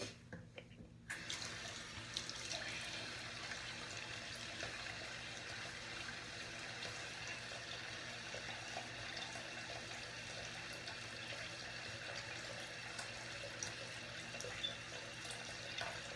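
Water running steadily from a sink tap, starting suddenly about a second in.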